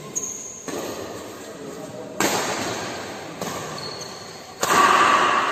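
Badminton rally: several sharp racket strikes on the shuttlecock, each trailing off in the hall's echo, the loudest near the end.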